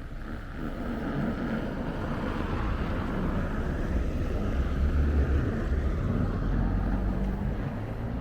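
A motor vehicle driving past, its sound growing to a peak about five seconds in and then easing off.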